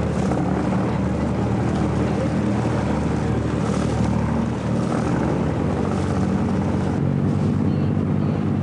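Boat engine running steadily with an even, low drone.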